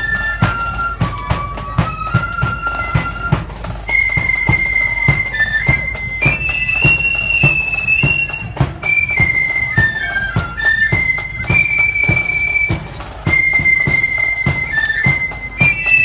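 Fife and drum band marching and playing a tune: a shrill unison fife melody of held and stepping notes over steady drum beats.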